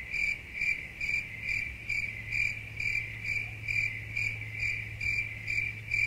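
Cricket chirping, a high chirp repeating steadily about three times a second: the stock 'crickets' sound effect for an awkward silence while someone is lost for words.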